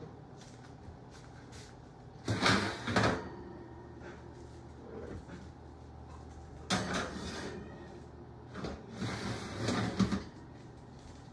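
Oven door opened and the wire oven rack slid out under a pan of baked ham: a double clunk about two seconds in, then more knocks and scrapes of the metal rack and pan around seven seconds and again near the end, over a faint steady hum.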